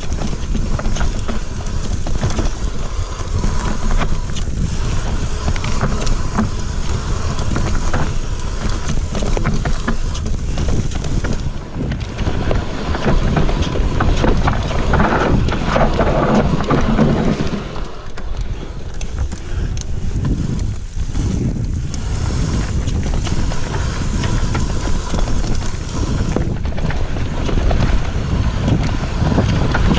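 Riding noise of an electric enduro mountain bike descending a dirt forest trail at speed: wind buffeting the camera microphone and tyres rolling on dirt, with frequent rattles and knocks from the bike over rough ground.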